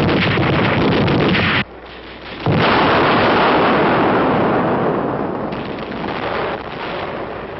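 Battle sound: dense, rapid gunfire that cuts off abruptly about one and a half seconds in, then, a second later, a loud explosion that rumbles on and slowly fades.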